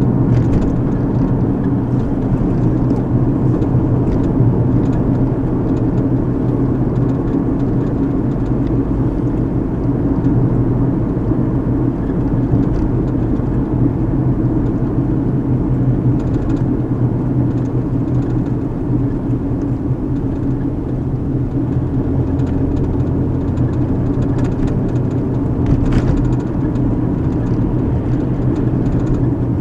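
Steady road and engine drone heard from inside a moving car's cabin, with a constant low hum. A few faint clicks come through, the sharpest near the end.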